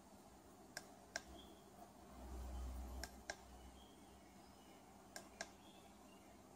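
Mode button on an electric ATV's handlebar LCD display pressed three times, each press a pair of small sharp clicks, about two seconds apart. A brief low rumble comes just before the second press.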